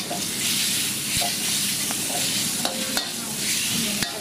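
Pork, fingerroot and chilies sizzling in hot oil in a wok while being stirred and tossed with a spatula. The spatula scrapes and knocks against the pan a few times.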